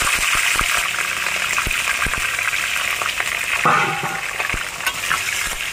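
Chicken pieces frying in hot oil in a kadhai: a steady sizzle with scattered pops and crackles.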